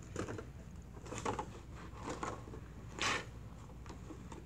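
Handling noise as a hooped red fleece blanket is fitted at an embroidery machine: soft fabric rustling and a few light clicks, with one louder brief rustle about three seconds in.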